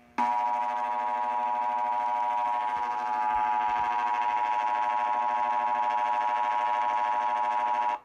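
Emergency Alert System attention signal: the steady two-tone alarm (853 Hz and 960 Hz sounded together), here announcing a Required Monthly Test. It holds unchanged for about eight seconds and cuts off abruptly.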